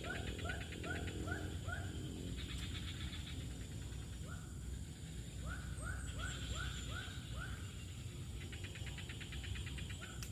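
Animal calls: two runs of six or seven short rising notes, about three a second, alternating with a rapid pulsing buzz, over a steady low rumble.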